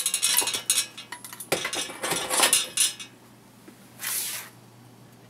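Metal bicycle parts being handled, clinking and rattling against each other for about three seconds, with a brief rustle about four seconds in.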